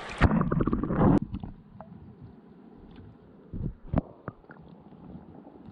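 Muffled handling noise while a small trout is being unhooked: a dense run of low knocks and rumbles in the first second, then a few scattered soft clicks.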